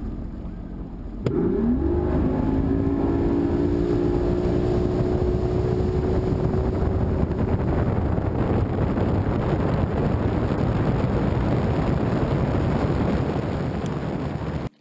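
Bass boat's outboard motor throttling up, its pitch rising quickly about a second in and then holding steady, under a loud steady rush of wind and water as the boat runs. It cuts off suddenly near the end.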